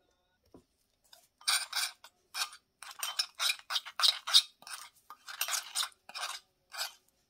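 A spoon stirring and scraping in a small glass bowl, mixing chili and turmeric powder into oil to a paste. A quick run of rasping strokes starts about a second in, two or three a second.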